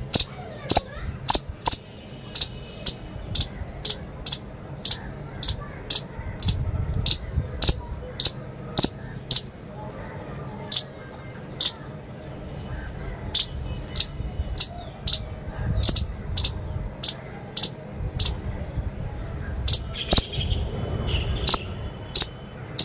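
Palm squirrel giving a string of sharp, high chip calls, about two a second, with a few seconds' pause about halfway through. There is a low rumble beneath.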